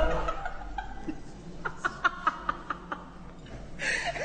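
A woman laughing: a quick run of short giggles, then a louder, higher burst of laughter near the end.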